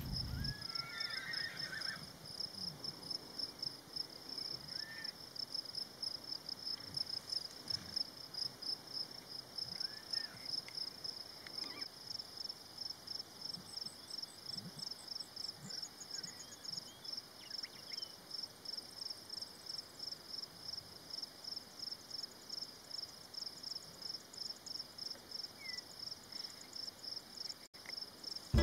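An insect chirping steadily in a high, even rhythm, about two to three chirps a second, with a few faint, scattered bird chirps.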